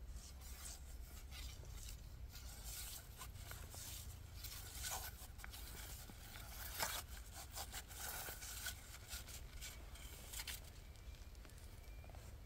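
Irregular rustling and scraping handling noise with light clicks, one sharper click about halfway through, over a steady low rumble.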